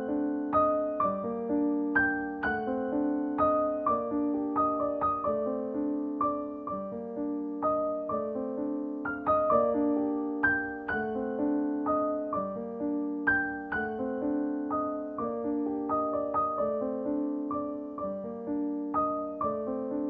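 Background piano music: a calm, flowing melody of struck notes, about two or three a second, each fading away over gently repeating chords.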